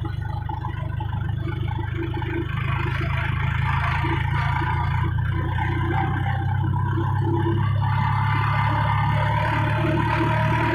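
Tractor's diesel engine running steadily under way, heard close up from the driver's seat, with a low steady drone and some clatter; it gets a little louder about three to four seconds in.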